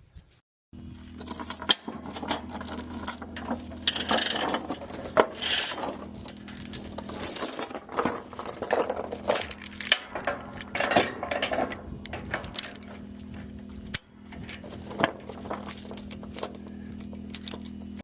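Steel tie-down chains rattling and clinking against metal, in many sharp strikes, over a steady engine hum.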